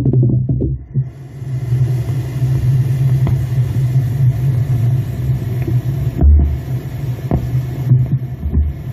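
Steady low machine-like hum recorded underground, with a few deep thuds about six seconds in and near the end. The uploader presents it as the sound of tunnel-digging machinery.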